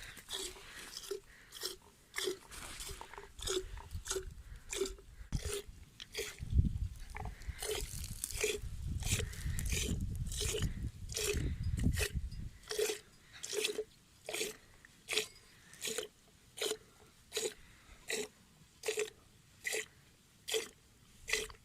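A sheep being milked by hand: short squirts of milk into a container, repeating steadily at one to two a second. A low rumble runs under them through the middle stretch.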